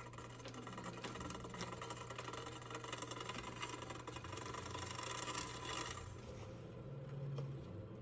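Bicycle chain and drivetrain of a Trek Dual Sport 8.3 running as the crank is turned by hand on the stand, a fast run of clicks that stops about six seconds in.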